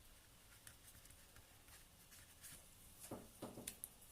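Near silence, with faint scattered scratches of a damp paintbrush working acrylic paint on the painting.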